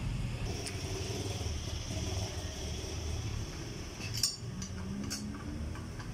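Metallic clinks of bolts and a hand tool being set into the flywheel cover of a small motorcycle engine, the sharpest about four seconds in and a lighter one about a second later, over a steady low hum.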